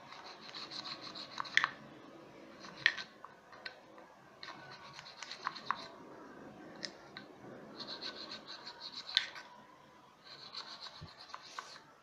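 A flat file scraping back and forth inside the splined bore of a Koblenz washing machine's plastic agitator coupling, clearing dirt from the grooves. It comes in several runs of quick strokes, with a few sharp ticks of the file against the hub.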